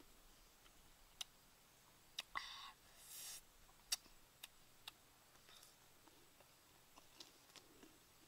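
Faint handling and eating sounds of small star gooseberry fruits being picked and bitten: a few sharp isolated clicks and two short rustling bursts about two and a half to three and a half seconds in, over near silence.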